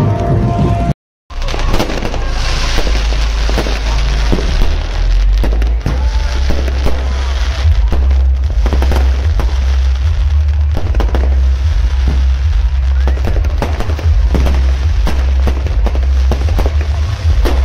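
Fireworks and firecrackers going off over a street crowd: a dense, irregular run of sharp cracks and bangs over a constant deep rumble and crowd noise. The first second is music, which cuts off abruptly.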